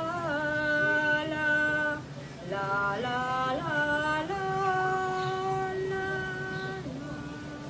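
A woman singing a slow, wordless tune in long held notes, with a short break a little over two seconds in.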